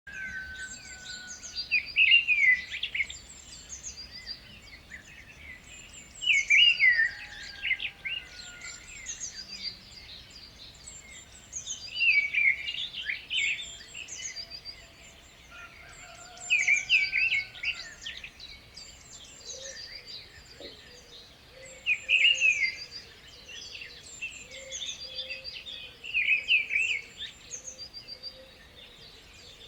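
Several songbirds singing, one bird repeating a loud song phrase about every four to five seconds over other chirps and calls.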